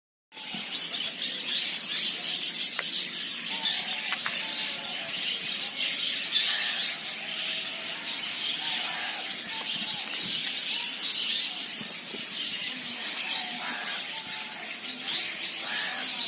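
Many small birds chirping and twittering at once, a dense unbroken chatter of overlapping high calls, as from a flock of pet birds kept together.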